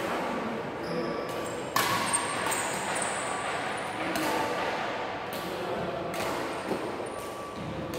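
Badminton rackets hitting the shuttlecock: a sharp smack about two seconds in, another just after, and a lighter one near the end, over indistinct voices echoing in a large hall.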